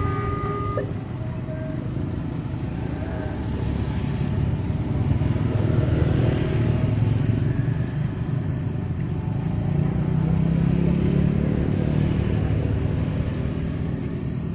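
Motor scooters and motorcycles riding past over a railway level crossing, their engines swelling as they pass twice, around the middle and again near the end. The crossing's electronic warning tones stop about a second in.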